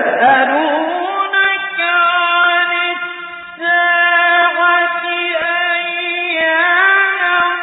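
A male Quran reciter chanting in a melodic style. His voice sets in sharply at the start and holds long, drawn-out notes with small ornamental turns in pitch.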